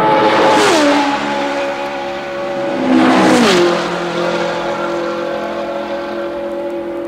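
1967 Formula One racing car engines at full speed in top gear, passing by twice, about three seconds apart. Each engine note drops sharply in pitch as the car goes past, and after the second pass a steady engine note holds on.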